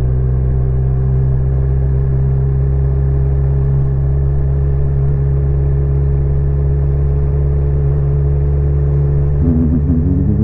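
Kawasaki Z1000 inline-four motorcycle engine running at an even low speed under a light throttle, its pitch steady. Near the end a brief wavering tone sounds over it.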